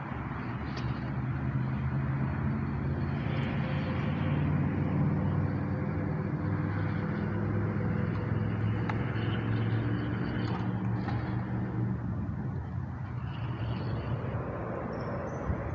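A motor vehicle's engine running, growing louder through the first few seconds and fading away about three-quarters of the way through, over steady outdoor background noise.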